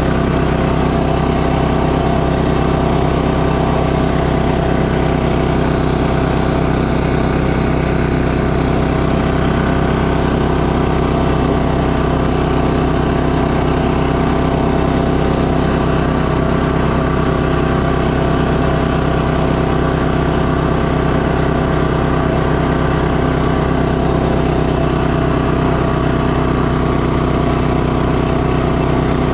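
Walk-behind snowblower's engine running steadily under load as the machine clears snow, its pitch holding even throughout.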